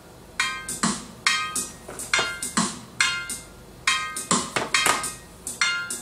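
Music from a vintage stereo receiver played through its speakers: struck, ringing percussion notes at an uneven rhythm of about two to three hits a second, each with a low thud.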